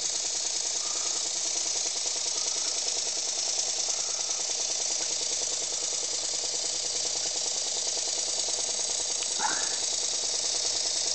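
Model mine engine, a modified Elmer Verburg design, running fast on compressed air with a quick, even exhaust beat and a constant hiss of air leaking from the still-unsealed engine.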